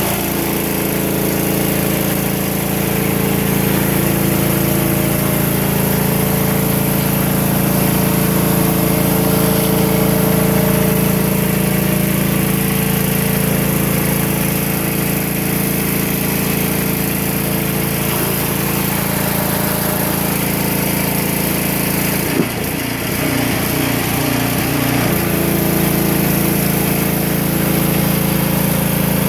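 Small gas engine of a pressure washer running steadily under load, with the hiss of high-pressure water from a surface cleaner on concrete. About two-thirds of the way through there is a click, and the engine note wavers unsteadily for a few seconds before it settles back to its steady run.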